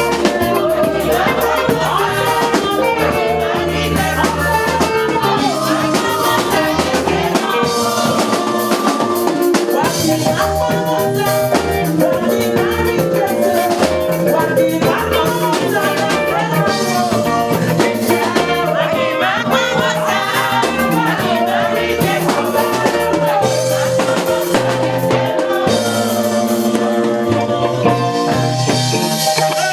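Live church worship band music with drums, keyboard and singing.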